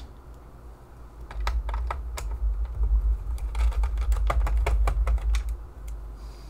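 Irregular small plastic-and-metal clicks and taps from a screwdriver working screws out of a laptop's plastic bottom cover and the screws being set down on a parts mat, clustered in the middle, over a low rumble.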